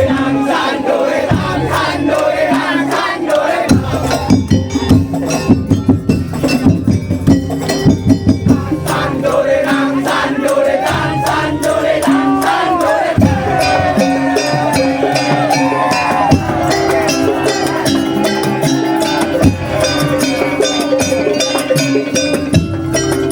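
Madurese daul band playing: drums and rattling percussion keep a dense beat under a gliding melody, with crowd noise mixed in.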